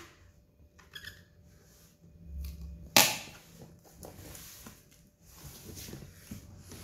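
Hands working over a taped cardboard box: faint rubbing and small ticks, with one sharp slap on the cardboard about three seconds in.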